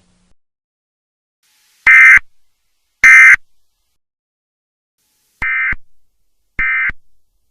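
Emergency Alert System end-of-message (EOM) data bursts: short warbling digital tones near 2 kHz, each about a third of a second long. Two loud bursts come about a second apart, then two quieter ones about a second apart, signalling the end of the alert.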